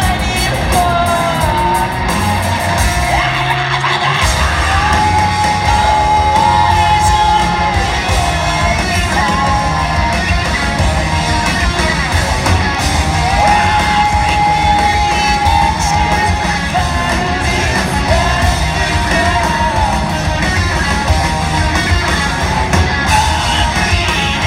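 A rock band playing live, with sung and yelled vocals holding long notes over guitars and drums, heard with the echo of a large concert hall.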